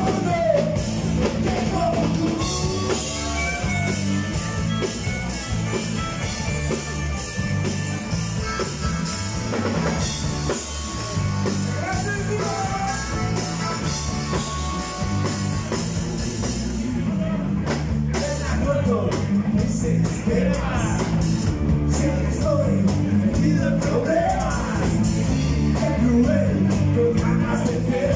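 Live rock band playing: electric bass, drum kit and electric guitar, with a man singing lead.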